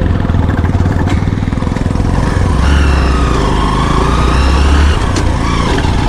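Motorbike engine running while riding over a rough, rocky dirt track, pulling harder for a couple of seconds in the middle and easing off near the end, with two short knocks about a second in and just after five seconds.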